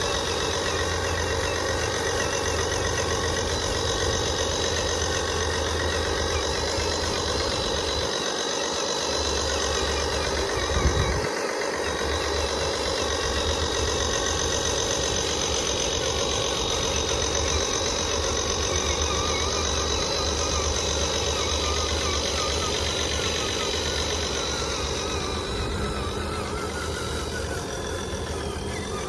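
Radio-controlled model truck and excavator running, a steady mechanical hum with a constant high whine over a low drone. There is one short knock about eleven seconds in.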